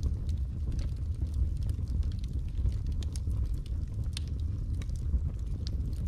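Wood logs burning in a fireplace: a steady low rumble of flames with scattered crackles and pops, a sharper pop about four seconds in.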